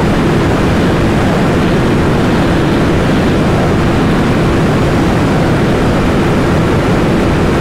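Heavy, steady wind rush on the microphone over a motorcycle's engine droning at a constant pitch. The bike is held near top speed in sixth gear at about 175 km/h. The engine is the single-cylinder of a third-generation KTM Duke 390.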